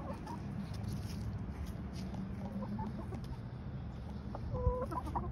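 Hens clucking softly: a few short, quiet clucks, then a longer held call about four and a half seconds in, over a steady low rumble.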